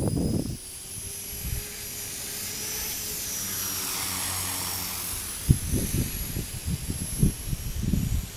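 Electric micro RC helicopter, an Align T-REX 250 SE, flying with a steady high-pitched whine from its motor and rotors. Gusts of wind buffet the microphone at the start and through the last few seconds.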